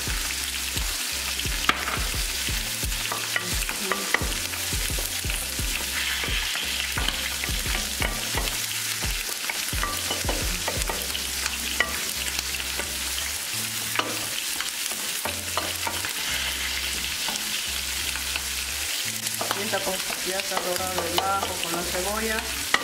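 Chopped onion sautéing in a stainless steel pot, sizzling steadily while a wooden spoon stirs it, scraping and now and then clicking against the pot.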